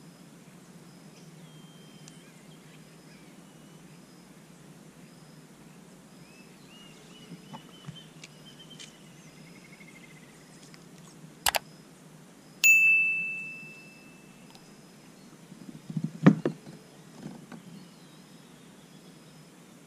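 Subscribe-button sound effect: a sharp mouse click, then a loud bell ding that rings out and fades over about two seconds. Around it, calm outdoor ambience with a short bird trill and a few knocks near the end.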